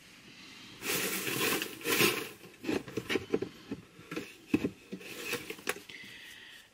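Paper and packaging rustling and scraping as hands rummage through a box, with a few light knocks and taps.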